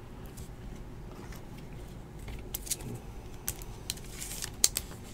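Trading cards being handled and flipped through by hand: faint rustling of card stock with scattered light clicks and snaps as the cards slide and tap against each other, a few sharper clicks near the end.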